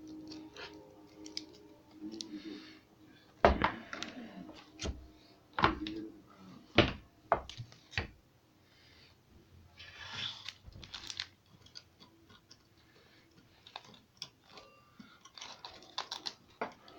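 A Convoy C8 flashlight being handled and fitted into a Weltool QM8 gun mount's loosened clamp. About five sharp clicks and knocks come a few seconds in, followed by softer scraping and rustling.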